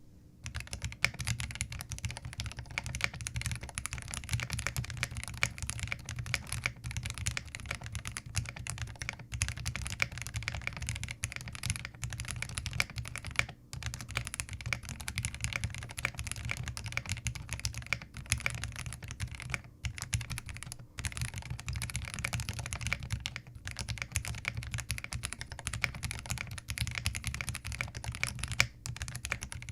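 Continuous fast typing on a Zoom TKL mechanical keyboard fitted with Gateron Yellow linear switches: a dense, steady stream of keystroke clacks with a few brief pauses.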